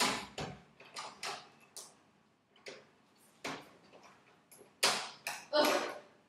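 Irregular sharp clicks and scrapes from a bathroom door's lock being worked with a coin to open it from outside.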